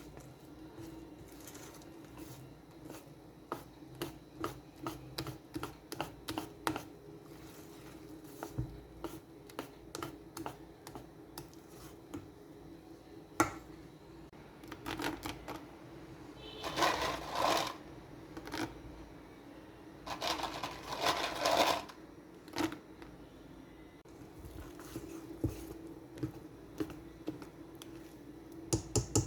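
A kitchen utensil clicking and scraping against a mixing bowl in runs of quick strikes while batter is worked by hand, with two short rustling bursts in the middle and a faint steady hum underneath.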